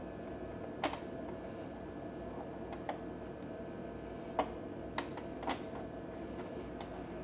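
A few light clicks and taps as a spark plug is threaded by hand into a portable generator's plug hole, over a steady low hum.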